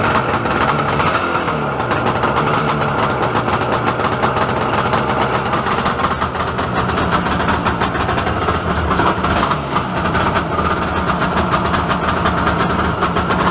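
IZh Jupiter-5's two-stroke twin-cylinder engine idling steadily while it warms up, just after its first start in years.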